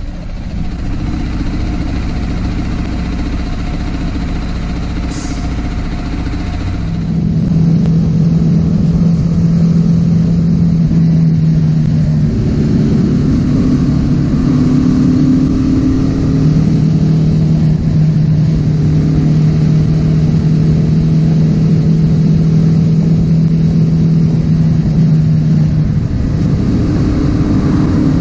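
Motorcycle engine running under way, most likely the BMW G310R's single-cylinder. The engine note holds steady at several pitches that change in steps, and it gets louder about seven seconds in.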